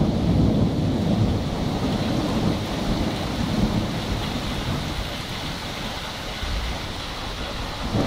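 Rolling thunder rumbling and slowly fading, over the steady hiss of heavy rain. A new rumble starts to swell at the very end.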